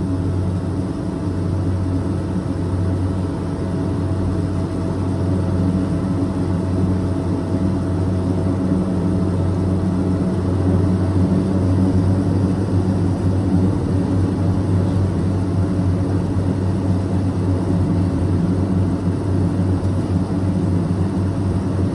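Swearingen Metroliner's Garrett TPE331 turboprop engines running at taxi power, heard inside the cabin: a steady, loud drone with a low hum, growing a little louder over the first ten seconds.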